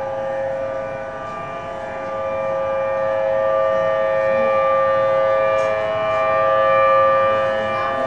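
Civil Defense outdoor warning siren sounding a tsunami warning: a steady chord-like wail that swells slowly in loudness and eases off near the end.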